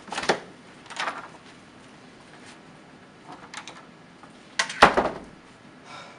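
Classroom door being opened and shut: a latch click just after the start and another about a second in, then a loud thud near five seconds in as the door closes.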